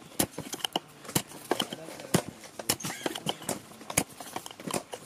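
A wooden rod knocking discs down into the cardboard tubes of a sky-shot firework cake: sharp, hollow, irregular knocks, one or two a second.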